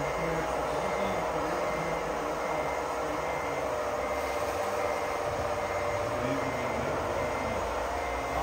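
Radio-controlled construction trucks running with a steady motor whine, over which a repeating high beep sounds like a reversing beeper.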